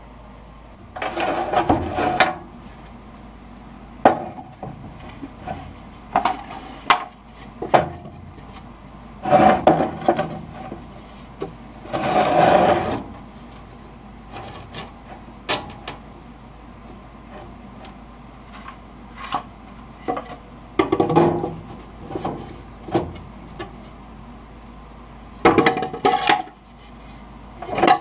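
Hand work with wood and tools at a workbench: scattered knocks and clicks, with several short spells of rubbing or scraping about a second long.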